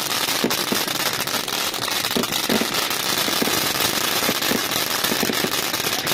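Ground firework fountain spraying sparks: a steady, loud hiss with dense crackling.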